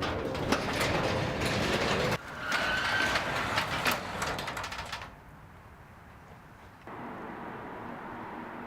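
Metallic rattling and clicking of a mechanism, with a brief squeak about three seconds in, stopping suddenly about five seconds in; near the end a steady low hum starts.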